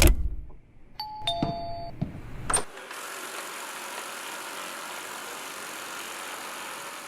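A robot vacuum gives a two-note falling electronic chime, then a click. After that comes its steady whirring run noise.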